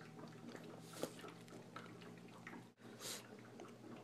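Quiet room tone with a faint steady low hum and scattered small clicks, a slightly sharper click about a second in and a short hiss about three seconds in.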